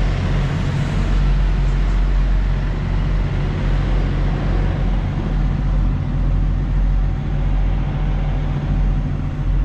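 Diesel engine of a Volvo VNL860 semi truck running steadily at low speed, heard from inside the cab as the truck creeps across the yard.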